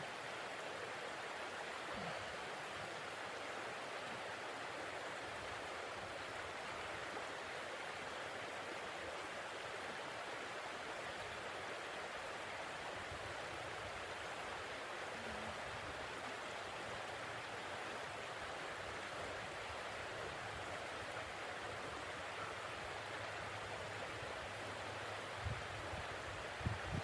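Steady, even rushing noise that holds one level throughout, with a couple of low thumps near the end.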